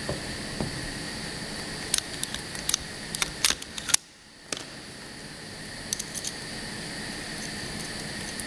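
Automatic through-hole component insertion machine running: a steady hum with a high whine, with bursts of sharp clicks as it works. The sound drops away briefly about four seconds in.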